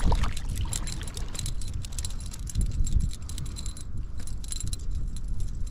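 Strong wind buffeting the microphone, a low rumble, with many small clicks and rattles over it.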